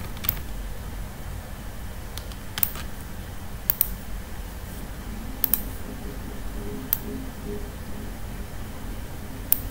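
Scattered clicks from a computer keyboard and mouse, about seven short taps spread unevenly, two of them in quick succession near the middle.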